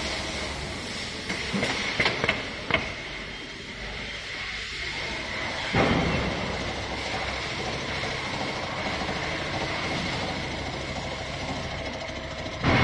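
Automatic sewing machine for cap trims running steadily with a constant high whine, a few sharp clicks around two seconds in, and a louder sudden burst of noise about six seconds in.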